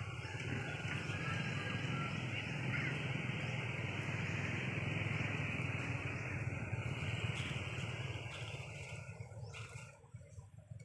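A motor vehicle running past, a steady engine and road noise that fades away near the end. A short crackle of dry leaves comes just before it dies away.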